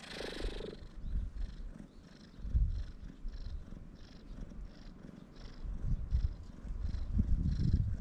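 Brown tabby cat purring with contentment as a hand strokes it, the purr coming as uneven low rumbles that grow louder toward the end, after a brief rustle at the start.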